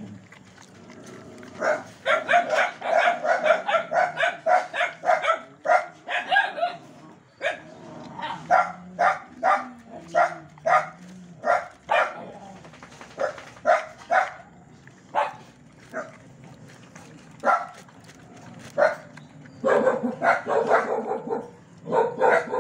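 A dog barking over and over. A fast run of barks, two or three a second, lasts several seconds; then come single barks about a second apart, and another quick run near the end.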